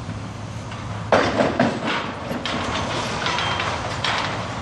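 Wrecking ball striking a brick wall about a second in, followed by several seconds of crashing and clattering as brick and debris come down. A steady low engine hum from the crane runs underneath.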